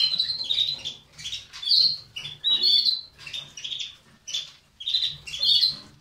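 Caged Portuguese Harlequin canaries calling: short, sharp, high chirps and squawks, several birds together, about every half second, with a brief lull around four seconds in.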